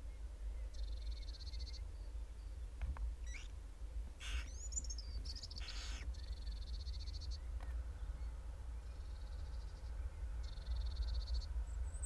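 Newly hatched barn owl chicks giving short, buzzy begging calls: four of them, each about a second long. A steady low hum runs underneath.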